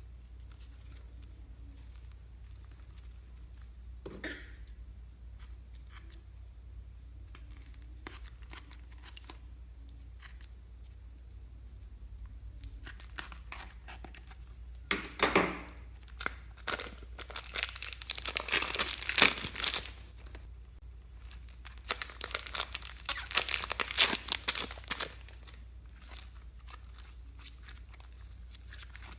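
Slime being squeezed and pulled by hand, making crackling, crinkling sounds. It starts with a few faint clicks, then comes in dense crackly stretches through the second half.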